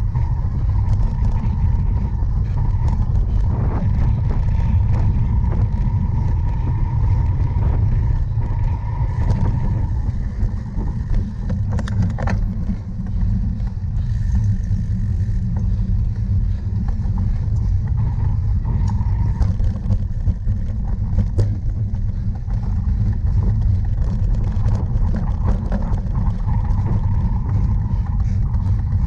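Steady wind rumble on the camera's microphone with the rattle and scattered knocks of a cyclocross bike ridden hard over rough ground.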